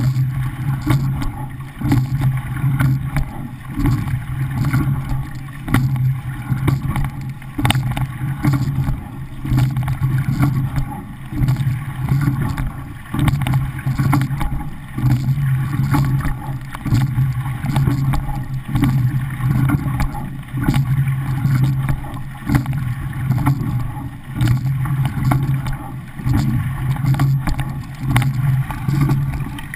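Water rushing along the hull of a racing pair shell, heard close up from the bow. It swells and eases with each stroke, about every one and a half seconds, with occasional sharp knocks and wind on the microphone.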